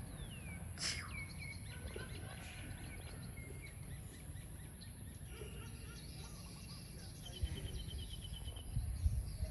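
Outdoor ambience of small birds chirping: a few short falling chirps in the first couple of seconds and a quick trill of even notes near the end, over a low background rumble.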